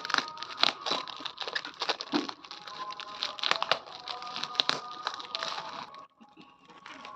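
Packaging crinkling and crackling in quick irregular bursts as it is handled, over soft background music. The crinkling stops about six seconds in.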